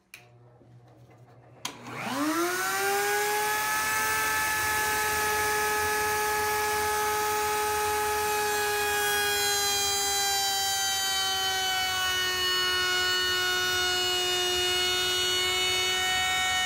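Table-mounted router with a cove bit switching on, spinning up to a steady high whine within about a second and a half. It then runs with its pitch sagging slightly as an MDF blank is fed through, taking a deep cove in one pass.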